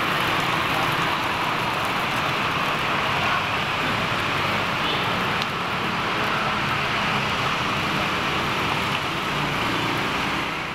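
Steady street traffic noise: a continuous rushing hiss of passing vehicles, with no single vehicle standing out.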